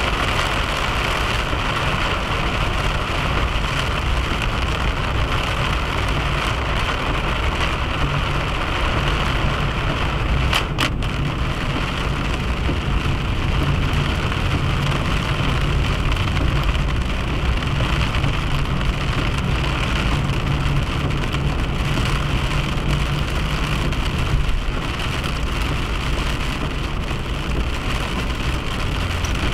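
A car driving at speed on a highway: steady tyre and engine road noise, with one brief click about ten seconds in.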